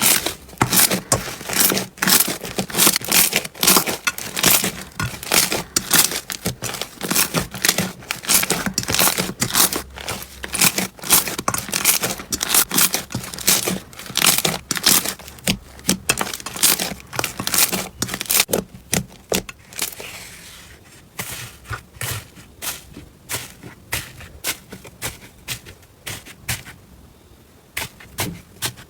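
Slime being squeezed and pressed by hand, giving a dense, rapid run of crackles and pops. The crackling thins out and softens about two-thirds of the way through, then picks up again near the end.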